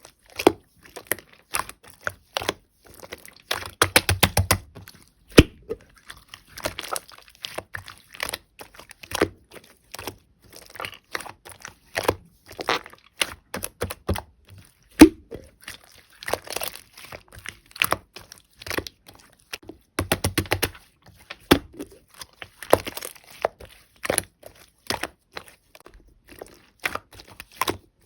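Clear red slime being pressed, stretched and folded by hand, giving sticky clicks and air-bubble pops, with runs of rapid crackling pops about four seconds and twenty seconds in.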